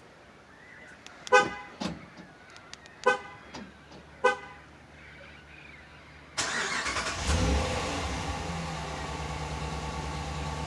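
Three short horn chirps from a 2015 Ram 1500, then about six seconds in its 5.7-litre Hemi V8 starts and settles into a steady idle.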